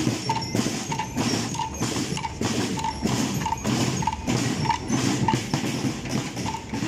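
Marching band drum line of snare and bass drums playing a steady marching beat, with a short ringing note on about every other beat.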